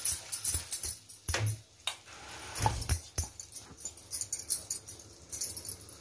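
A wooden spatula stirring tomato puree in a non-stick frying pan, with irregular knocks and scrapes against the pan over a light sizzle; the knocks are thickest in the first three seconds or so.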